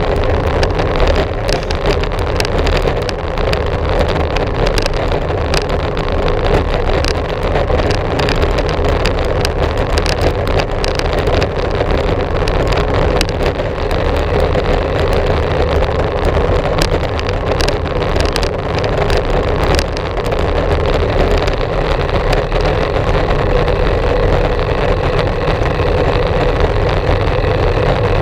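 Steady rush of wind over a bicycle-mounted action camera's microphone, with tyre and trail rumble from a moving bicycle and frequent small clicks and rattles throughout.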